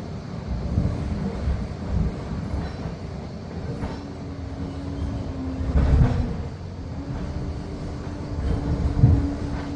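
Liebherr PR 746 crawler dozer working, its diesel engine running under steady load and its steel tracks clanking. A steady whine sets in about a third of the way through, and two heavier knocks stand out, about six and nine seconds in.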